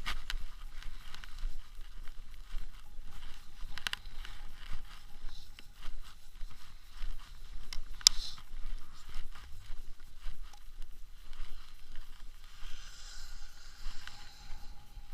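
Gusty wind buffeting the microphone in a low, pulsing rumble, with a few sharp clicks, the loudest about eight seconds in.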